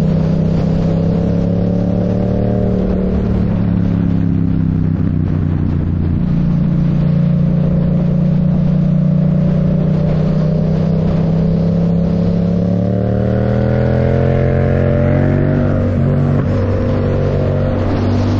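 Yamaha MT-07's parallel-twin engine through a MIVV Delta Race full exhaust, running at a steady speed, then rising in pitch as it accelerates about twelve seconds in and dropping back about sixteen seconds in.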